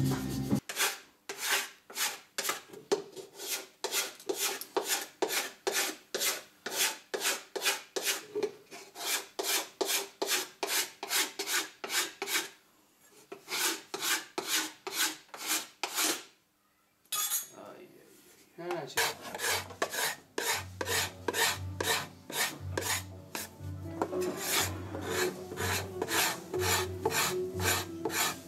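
Hand scraping on the wooden body of a setar under construction: quick, even strokes, about two or three a second. They pause briefly twice around the middle, then carry on.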